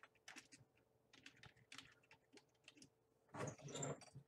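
Computer keyboard typing: a run of faint keystroke clicks as a short phrase is typed, with a louder, denser stretch just before the end.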